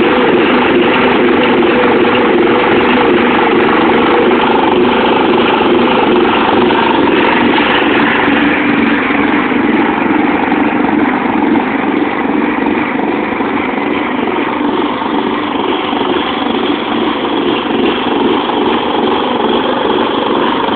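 Riding lawnmower engine running steadily and loudly, with little change in pitch.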